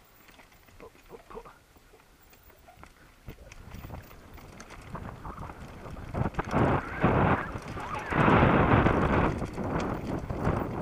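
Mountain bike rolling fast down a rocky dirt trail: tyres running over loose stones and the bike rattling and knocking over bumps. It starts faint, grows from about three seconds in and is loudest in the last few seconds.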